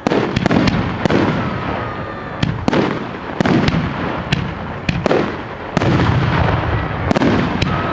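Aerial fireworks show: a rapid series of shell bursts, sharp bangs each followed by a rumbling echo, with booms overlapping throughout and a faint whistle from a rising shell.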